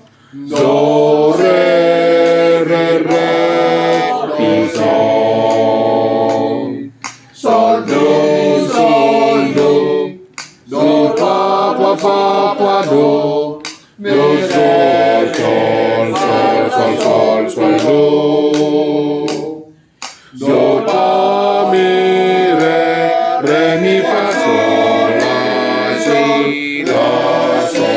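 Men's church choir singing a cappella in long held phrases during rehearsal, with short breaks for breath between phrases about four times.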